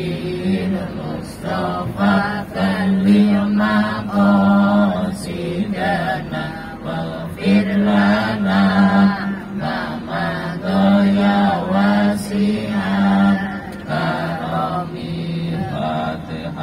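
A group of voices chanting together in unison, in long held phrases with short breaks between them.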